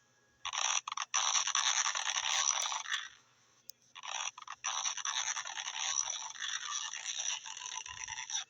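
Crunching, scraping noise of an apple being chewed, in two long stretches with a short pause between, cutting off suddenly near the end.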